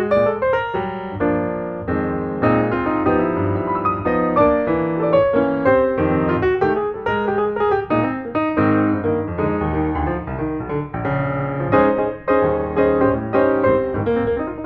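Background piano music, a continuous run of struck notes and chords.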